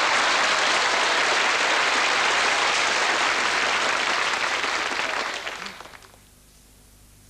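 Studio audience applauding, dying away about six seconds in.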